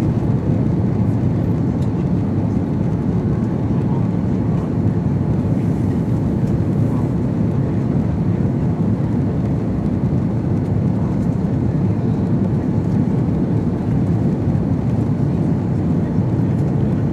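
Steady rush of engine and airflow noise inside the cabin of an Airbus A330-300 airliner, even in level throughout with no bumps or surges.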